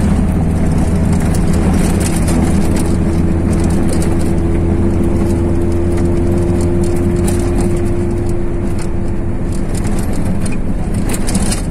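Chevrolet car driving on a dirt road, heard from inside the cabin: a steady engine and tyre rumble with a faint hum that fades out near the end, and scattered small clicks and rattles.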